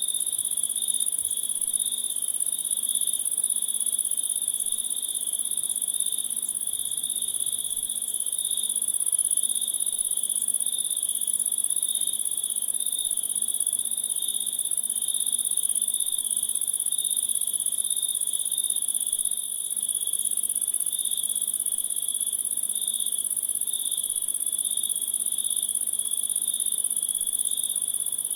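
A chorus of crickets chirping without a break: a high, steady shrill trill over a lower, rapidly pulsing chirp.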